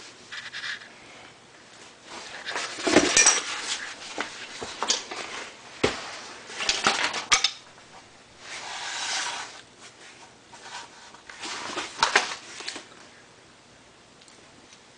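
Irregular metallic clinks, knocks and rustling from hands handling parts and gear while working under a car, with a few louder clatters spread through.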